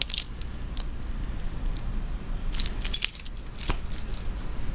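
Keys on a keyring clinking and jingling as the ring is handled, in a few short clusters of metal clinks.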